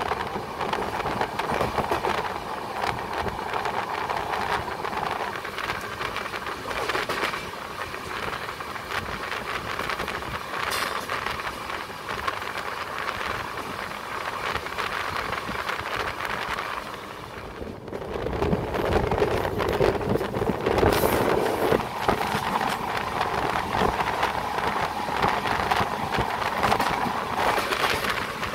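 Running noise of a passenger train heard at its open coach door: wheels on rails with wind at the doorway. It grows louder about two-thirds of the way in, and near the end a train on the adjacent track passes close by.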